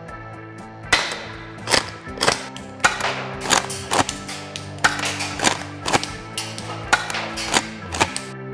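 PPS M870 pump-action gas airsoft shotgun replica being fired and pumped: a quick string of about a dozen sharp cracks and clacks, roughly two a second, starting about a second in. Rock background music plays underneath.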